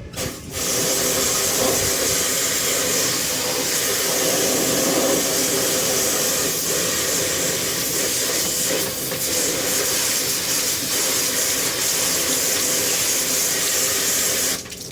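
Water spraying hard onto air-conditioner parts as they are washed, a steady loud hiss that starts about half a second in and cuts off suddenly just before the end.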